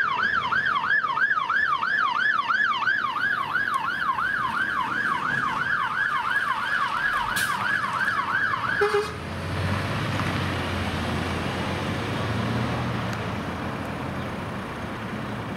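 Emergency vehicle siren in fast yelp, about three sweeps a second. It starts right as a falling wail ends and cuts off about nine seconds in. After that, the diesel engine and tyres of a passing Scania P360 aerial ladder fire engine carry on as a steady low rumble.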